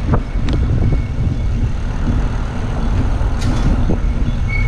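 Wind rumbling on the microphone of a bike-mounted camera while riding along a street, mixed with tyre and road noise, with a few light clicks.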